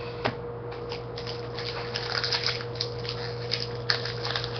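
Trading cards being handled in the fingers: a run of small crackles and clicks, over a steady electrical hum.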